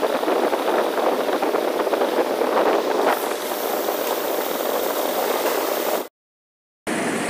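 Industrial stainless-steel bowl dough mixer running, a steady machine noise; a brighter hiss joins about three seconds in, and the sound cuts out for under a second near the end.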